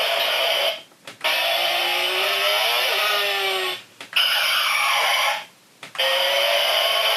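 DX Tridoron toy car's built-in speaker playing its Type Speed electronic sound effects: several loud, noisy bursts separated by short breaks, with a gliding tone around the middle.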